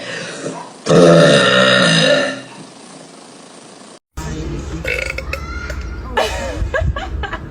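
A young woman's loud, low burp about a second in, lasting about a second and a half.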